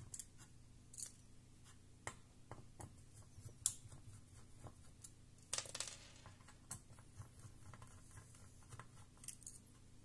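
Small screwdriver backing out the cooler screws on the back of a graphics card: faint scattered clicks and scrapes of the bit turning in the screw heads, with a sharper click about three and a half seconds in and a brief scrape near six seconds.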